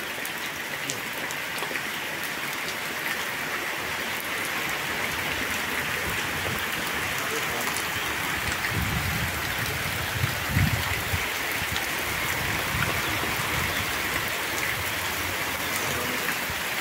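Steady rain falling on bare ground, puddles and tree leaves, an even hiss, with a few low bumps about halfway through.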